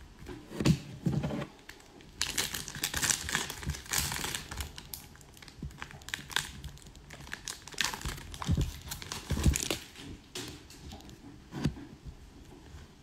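An Upper Deck hockey card pack's shiny wrapper being torn open and crinkled in the hands, crackling in two main spells, with a few dull handling knocks.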